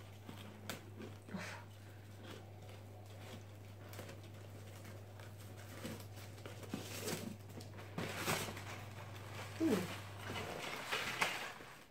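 Hands untying a satin ribbon and opening a cardboard gift box: faint rustles and small scrapes, getting busier and louder over the last few seconds as the box flaps are pulled open. A steady low hum runs underneath and stops near the end.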